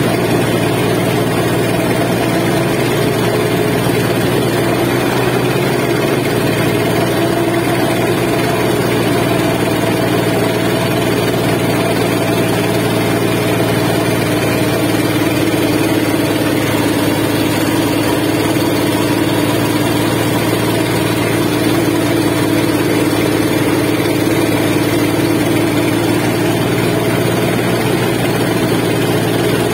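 The engine of a river sand-pumping boat running steadily at an even speed, loud and unbroken.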